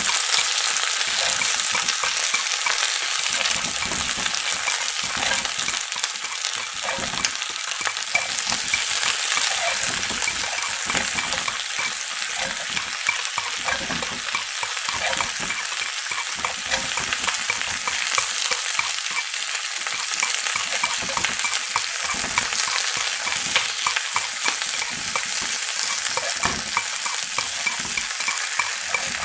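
Chicken frying in hot oil: a steady sizzle with many small crackling pops.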